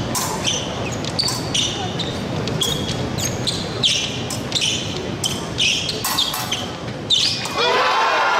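Fencers' shoes squeaking sharply on the piste in short, irregular chirps during footwork, over the steady murmur of a large hall. Voices rise near the end.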